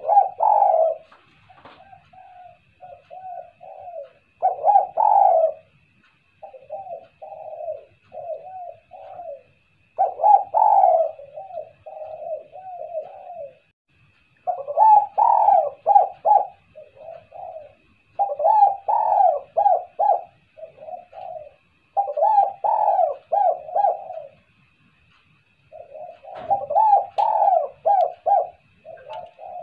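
Spotted dove cooing in repeated phrases, each a quick run of short coos, with a louder phrase about every four to five seconds and softer coos between.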